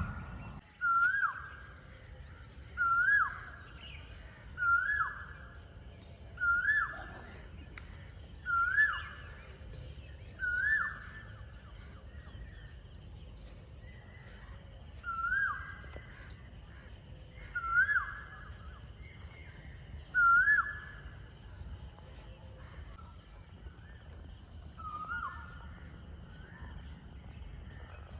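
A bird calling over and over, a short whistled note that rises and then drops, about every two seconds with a few longer pauses, over a steady low rumble.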